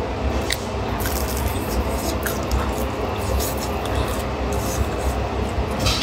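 Chewing a mouthful of crisp-crusted beef huoshao flatbread: irregular crunching with wet, squishy mouth sounds.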